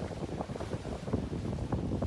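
Wind buffeting the microphone aboard a moving boat, an irregular low rumble of gusts.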